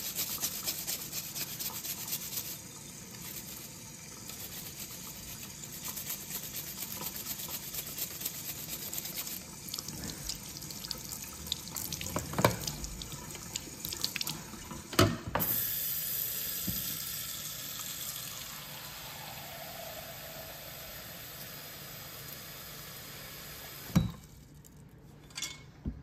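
Kitchen faucet running into a sink while a small part is scrubbed under the stream with a plastic-bristled scrub brush. A few sharp knocks fall in the middle, and after a last knock near the end the running water stops.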